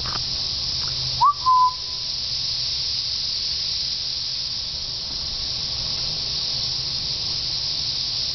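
A chorus of periodical cicadas droning steadily at a high pitch. About a second in, a single clear whistled note sweeps up and is held briefly, louder than the chorus.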